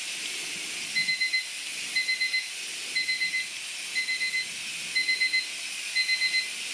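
Electronic kitchen timer beeping in quick bursts of about four beeps, once a second, six times, starting about a second in, over a steady high hiss: the signal that the pressure-cooking time for the beef filling is up.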